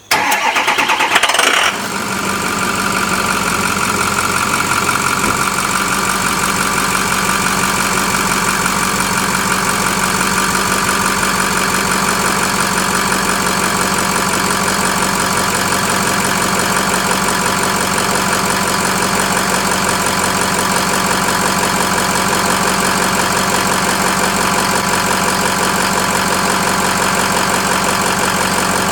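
Ford 6.0L Power Stroke V8 turbo-diesel in a 2006 F-250 starting up, with a brief burst as it catches, then idling steadily on its newly fitted turbocharger.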